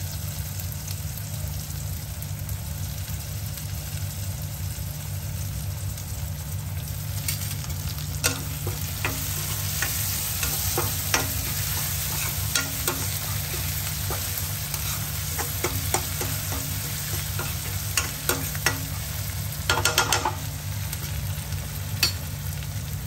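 Onion and tomato frying in oil in a kadhai, sizzling steadily over a low hum. From about a third of the way in, the pan is stirred, and a metal utensil clicks and scrapes against it, with a quick run of knocks near the end.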